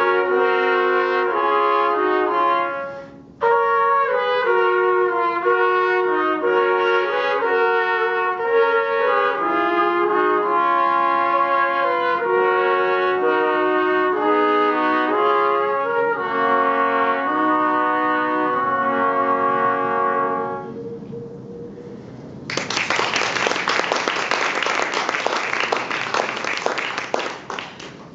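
Three trumpets playing a traditional folk-song arrangement in close harmony, with a short break about three seconds in, ending on a held chord about twenty seconds in. After a brief pause, applause follows for about five seconds near the end.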